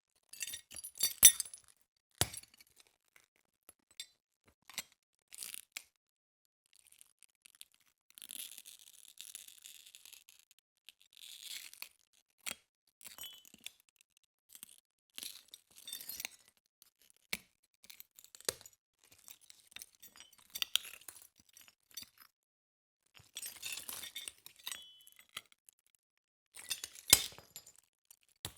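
Glass shards crunching and clinking: a string of short, sharp crunches with quiet gaps between them, some in longer grinding clusters, the loudest about a second in and near the end.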